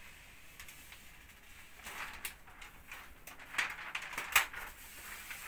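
Frosted vinyl window film and its plastic backing sheet crinkling and crackling as they are handled and pressed flat onto wet glass: irregular sharp crackles from about two seconds in, the loudest a single sharp crack near the end.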